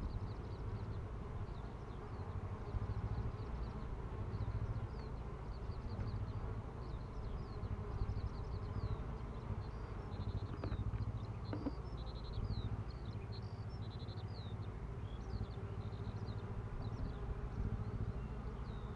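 Honeybees buzzing in a steady hum as many fly in and out of a row of hive entrances. Faint high chirps run over it throughout.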